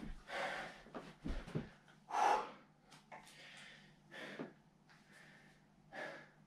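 A man breathing hard and gasping, winded after a hard effort on cycling rollers, with a string of heavy breaths about a second apart. A couple of soft thumps come about a second and a half in.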